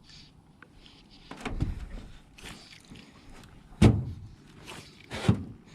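A series of knocks and thumps in a jon boat, about five, uneven in timing, the loudest a little before the four-second mark.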